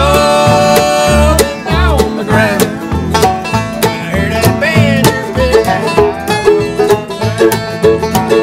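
Acoustic bluegrass band playing: banjo rolls and acoustic guitar over a plucked upright bass keeping a steady pulse, with mandolin.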